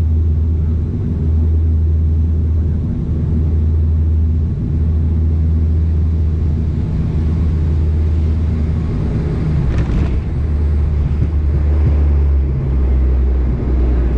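Turboprop airliner's engines and propellers droning as a steady low hum, heard from inside the cabin during landing and the roll-out on the runway. There is a brief burst of noise about ten seconds in, and the engine tone changes near the end.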